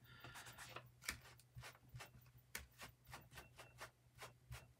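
Ink blending tool dabbed quickly and repeatedly onto a paper tag on a cutting mat: faint, soft taps, several a second.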